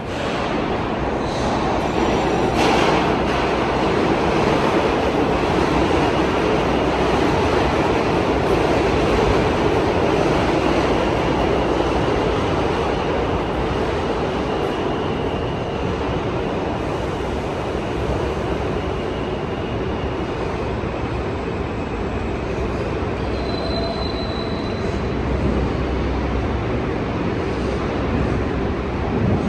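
New York City subway train running through the station: a loud, steady rumble of steel wheels on rail, easing slightly after the first several seconds, with a brief high wheel squeal near the end.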